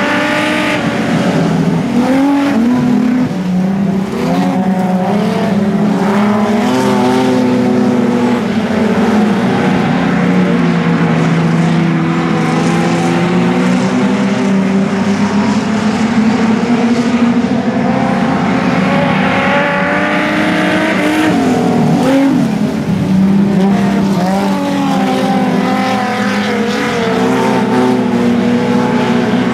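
Several street stock sedans racing together, their engines revving up and falling back over and over as they drive around the oval, with several engine notes overlapping.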